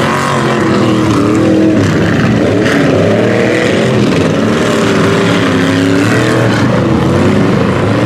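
Lifted mud trucks' engines revving hard as they drive through a mud pit, the pitch rising and falling again and again.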